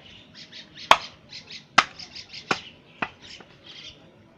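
A butcher's cleaver chopping meat into chunks: four sharp chops, about a second apart and then quicker, the first two the loudest.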